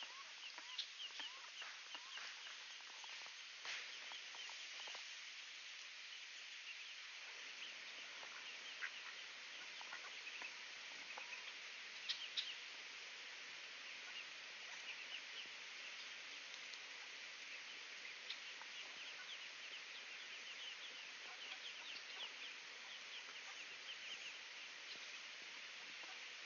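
Ducklings peeping in many quick, high chirps, with soft calls from the ducks, faint over a steady outdoor hiss.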